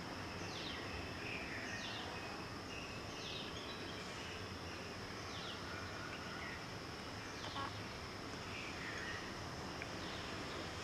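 Outdoor ambience: a steady high-pitched insect drone, with a bird repeating a short falling call every second or so over a constant background hiss.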